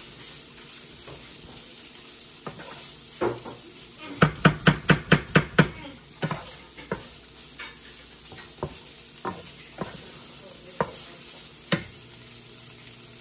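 A wooden spatula stirring and scraping ground chicken and rice frying in a large skillet, over a light sizzle with scattered taps. About four seconds in comes a quick run of about eight sharp knocks of the spatula against the pan, roughly six a second.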